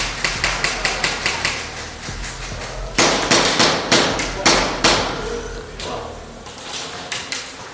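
Airsoft guns firing rapid strings of sharp shots: a quick even string of about six shots a second at the start, then louder, more spaced shots about three seconds in.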